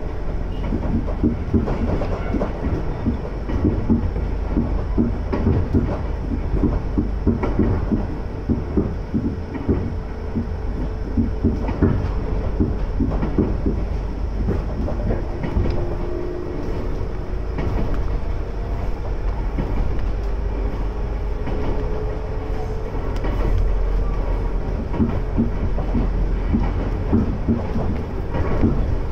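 Former Tokyu electric train car running along the Iga Railway line, heard from inside the carriage: a steady rumble with a steady tone, and wheels clacking over the rail joints.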